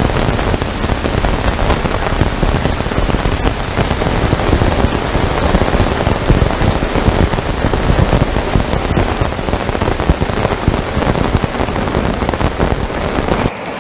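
Heavy rain falling in a steady downpour, with a brief dip in level near the end.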